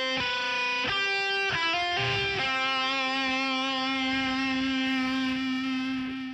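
Guitar intro music: a quick run of picked notes, then one note held and ringing.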